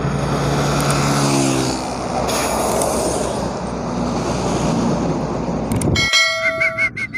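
Highway traffic passing close by: a heavy container truck and other vehicles go past with engine drone and tyre noise, one engine tone dropping in pitch as it passes. About six seconds in, the traffic cuts off abruptly and bell-like ringing tones with a pulsing beat take over.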